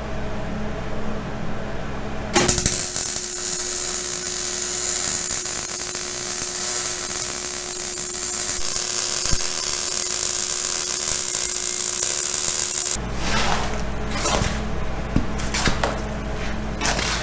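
MIG welder arc crackling steadily as a bead is laid on the steel axle truss. It starts about two seconds in and cuts off about ten seconds later, followed by a few knocks and rustles.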